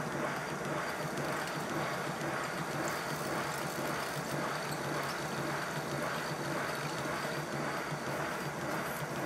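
5-inch gauge live steam model of the Lion locomotive running steadily on the workbench under about 30 psi of steam: a fast, even beat of steam exhaust with the clatter of its slip-eccentric valve gear and motion.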